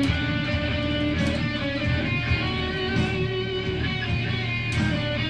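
Rock music playing, led by guitars with a steady drum beat.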